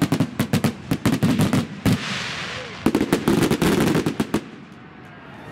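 Fireworks finale barrage: rapid volleys of sharp bangs, broken near two seconds by a short hissing gap, then a second dense salvo that dies away after about four and a half seconds.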